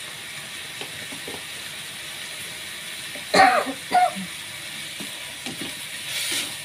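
Bitter melon stir-frying in a pan with a steady sizzle. About three and a half seconds in, a person coughs twice, the loudest sounds.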